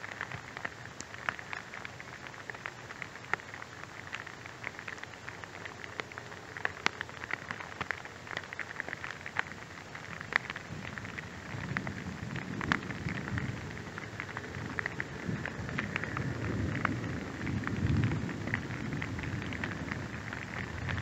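Rain falling on grass and fallen leaves: a steady patter with many separate drop ticks. About halfway through a low rumble comes in, swelling and fading, strongest near the end.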